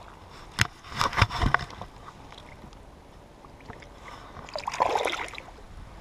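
Water splashing and sloshing as a bass is released by hand into shallow lake water: a few sharp splashes about a second in, and a longer slosh near the end.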